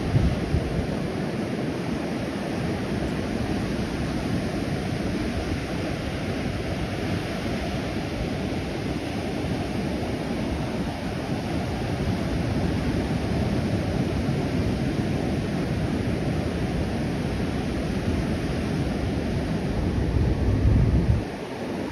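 Ocean surf breaking and washing up a sandy beach, with wind buffeting the microphone. The wind gusts hardest just after the start and again near the end, then eases suddenly.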